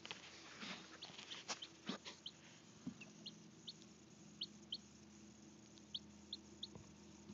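Baby chicks peeping: about a dozen short, high, falling peeps spread across the few seconds, with some rustling clicks in the first two seconds and a faint steady low hum underneath.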